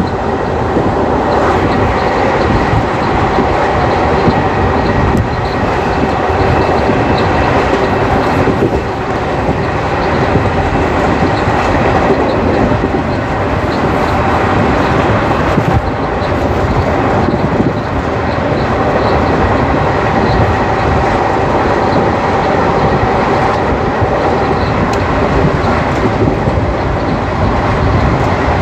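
ICF passenger coach running along the track: a steady, loud rumble of steel wheels on rail with faint regular clicks over the rail joints.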